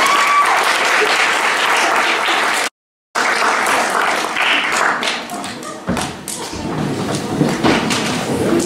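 Audience applauding, a dense patter of many hands clapping. The sound cuts out completely for a moment about three seconds in, then the applause carries on.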